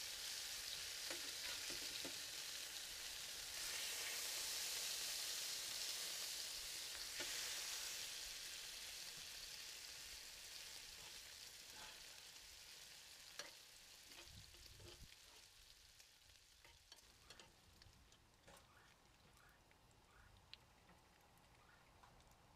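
Bacon strips sizzling on a Blackstone flat-top griddle. The sizzle fades steadily after the first several seconds, and scattered small clicks and pops come through in the second half.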